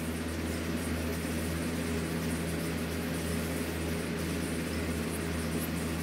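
Steady low mechanical hum with a few faint steady tones above it, unchanging throughout: room background noise from a running appliance.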